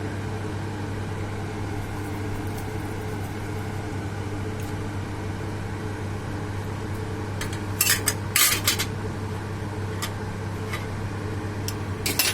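Short clinks and clatters of a spoon against a bowl while salt is added to bhelpuri ingredients, a cluster about eight seconds in and a couple more near the end, over a steady low hum.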